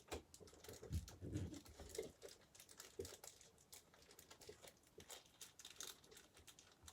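Faint handling noise of small computer-case screws and their plastic parts bag being sorted by hand: scattered light clicks and crinkling, with a couple of soft knocks about a second in.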